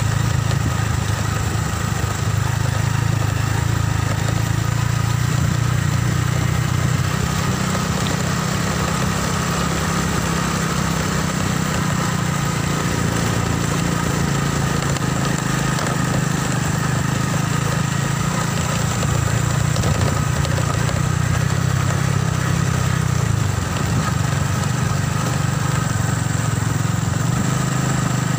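Motorcycle engine running steadily at low road speed, its pitch shifting slightly up and down.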